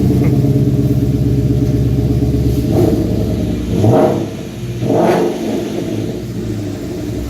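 2015 Mustang GT's 5.0 Coyote V8 through an SVE stage 2 exhaust with X-pipe resonator delete, running at a steady fast idle just after start-up. From about three seconds in it gives three quick throttle blips about a second apart, then settles to a lower idle.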